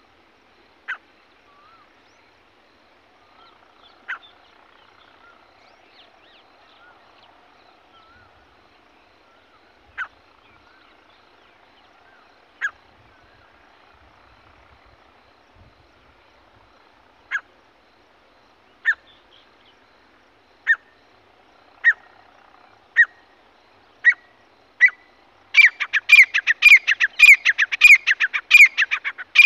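Grey francolin calling: single sharp notes several seconds apart that come faster and faster, breaking near the end into a loud, rapid run of repeated notes.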